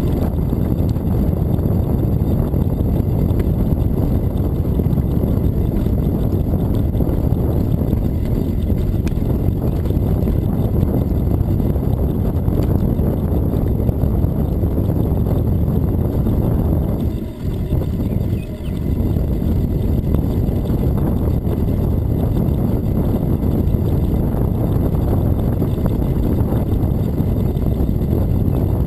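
Steady low rumble of wind buffeting the microphone of a camera on a moving bicycle, mixed with tyre noise on the asphalt trail. It dips briefly twice a little past halfway.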